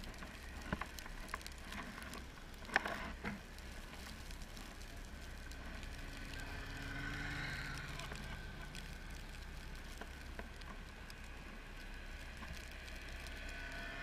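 Snowmobile engines approaching along the trail, faint at first and growing a little louder from about six seconds in, over a low steady rumble. A few light clicks sound in the first three or four seconds.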